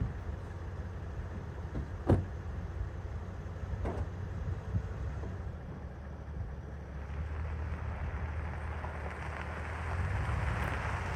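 Steady low rumble of a vehicle driving, with a few short clicks and a sharp knock about two seconds in; a rushing noise builds near the end.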